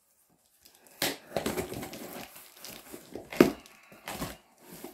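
A knife slitting the packing tape along the top seam of a cardboard shipping box, with scraping and crinkling of tape and cardboard starting about a second in. A louder sharp crack comes about three and a half seconds in, and another shortly after.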